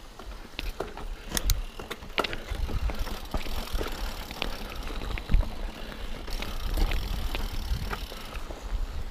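Mountain bike rolling over rocky dirt singletrack: tyres crunching on stones and grit, with frequent sharp clicks and rattles from the bike and a low rumble underneath.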